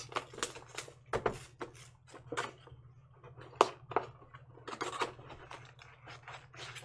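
Plastic shrink-wrap being torn and crinkled off a cardboard trading-card hobby box, then the box handled and opened and foil card packs pulled out, in irregular crackles and clicks. The sharpest click comes about three and a half seconds in.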